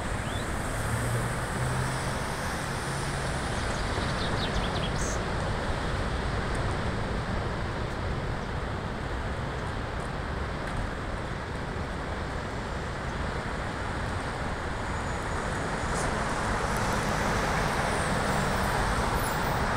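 Steady rushing roar of storm surf breaking along the shore, swelling a little near the end, with a faint low hum in the first few seconds.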